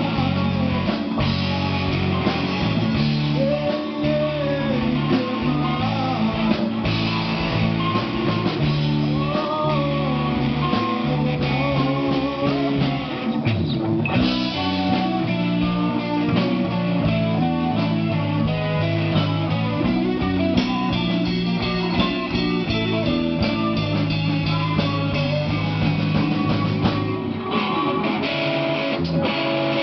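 Rock band playing live: guitars over a drum kit, a steady dense wall of music.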